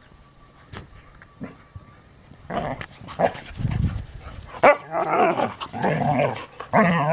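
Two dogs roughhousing at play, growling and barking in rough bursts that start about two and a half seconds in, with one sharp loud bark near the middle.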